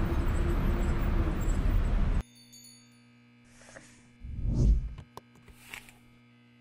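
Street ambience with a steady traffic rumble that cuts off abruptly about two seconds in. Then quiet handling sounds: a vinyl record sliding out of its cardboard sleeve with a soft rubbing rustle, a light click, and a brief rustle as the record is set on the turntable.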